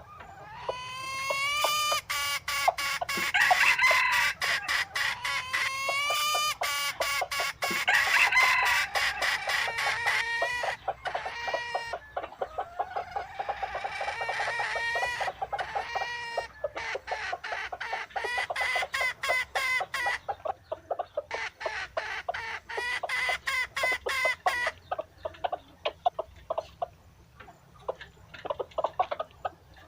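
Dong Tao chickens clucking and crowing: drawn-out calls that waver in pitch over a run of rapid short clucks, thinning to scattered clucks near the end.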